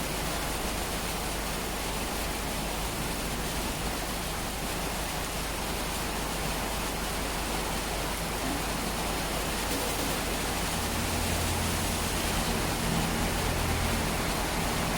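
Steady rain falling, an even hiss. Near the end a low hum rises under it for a few seconds, then fades.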